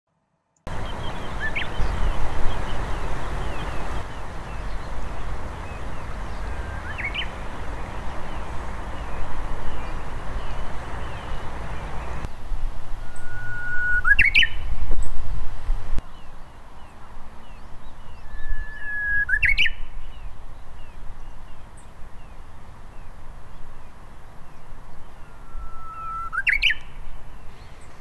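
Japanese bush warbler (uguisu) singing its song five times, about every five or six seconds: each phrase is a long held whistle that breaks into a quick upward flourish. A steady background hiss drops away about twelve seconds in.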